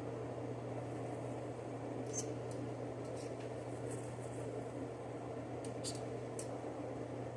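Steady hum and whoosh of a kitchen extractor fan, with a few faint light clicks and ticks in the middle stretch.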